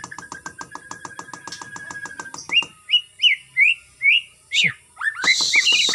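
White-rumped shama singing: a fast rattling run of notes over a held whistle, then a string of short down-slurred whistles about twice a second, and near the end a harsh chatter mixed with quick notes.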